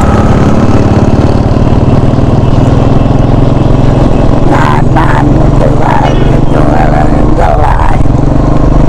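Motorcycle engine running steadily while riding, a low continuous drone, with voices talking briefly in the middle.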